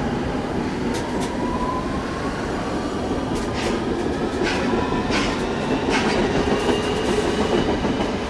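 London Underground S7 Stock train moving alongside the platform, its traction motor whine slowly rising in pitch over a steady rumble of wheels on rail as it gathers speed. There are several sharp clacks from the wheels on the track.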